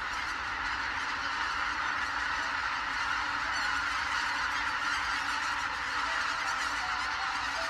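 A large flock of wild geese honking, many calls overlapping into a continuous clamour. From about six seconds in, soft music with held notes comes in under the calls.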